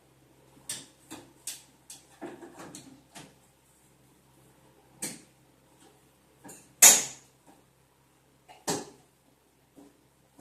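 Clicks and knocks of a tub transfer bench being handled and adjusted, about a dozen sharp taps at uneven intervals, the loudest about two-thirds of the way through.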